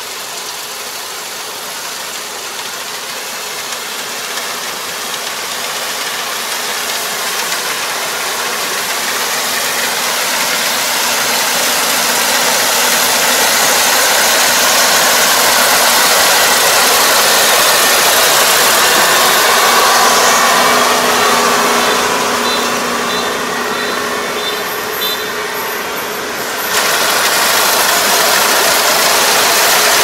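Farm machine engine running steadily with a dense mechanical rush, growing louder over the first half; the sound changes abruptly about 27 seconds in.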